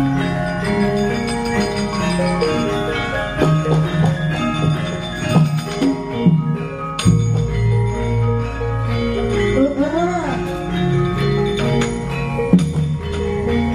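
Javanese gamelan ensemble playing wayang accompaniment: bronze metallophones and gongs ringing in interlocking melodic lines, with a deep low stroke about halfway through and a few sharp knocks.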